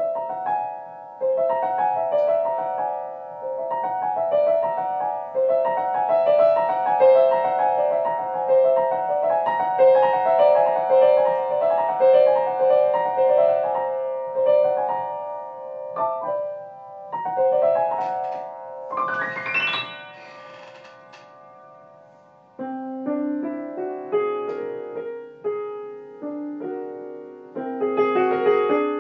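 Solo piano improvising on the whole-tone scale: quick repeated note figures in the middle register, a fast upward run about two-thirds through, a short quieter stretch, then lower chords.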